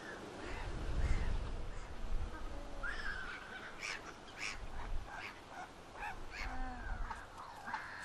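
Wind buffeting the microphone, loudest about a second in, then a mix of waterbirds giving short, harsh calls from about three seconds in.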